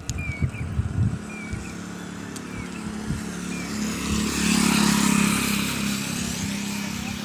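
A motor vehicle running past, its engine hum and hiss rising to a peak about four to six seconds in and then easing off. Short high chirps repeat through it, with a few low knocks in the first second.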